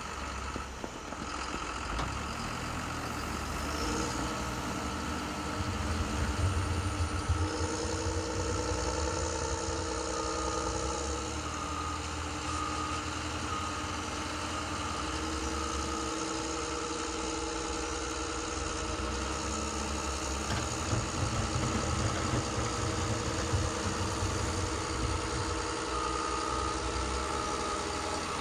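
Radio-controlled model Liebherr L574 wheel loader running as it works snow, its engine-like drone rising and holding as it drives and lifts. A reversing beeper sounds in short even beeps twice, near the middle and again near the end.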